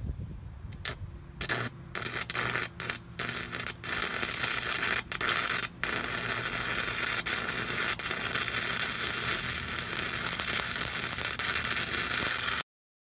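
Arc welding steel angle iron to a camper's frame: short stop-start bursts of welding crackle for the first few seconds, then a steady crackling weld bead for most of the rest, which cuts off suddenly near the end.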